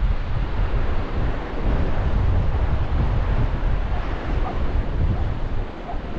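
Strong wind buffeting the microphone over the steady wash of rough surf breaking on the beach.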